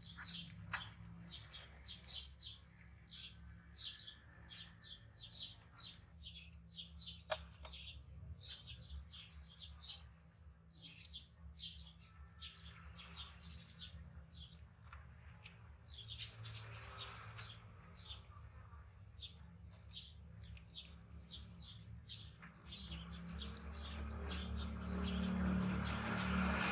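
Small birds chirping in quick short notes, several a second, thinning out after about twenty seconds, over a steady low hum. A rustling noise swells near the end.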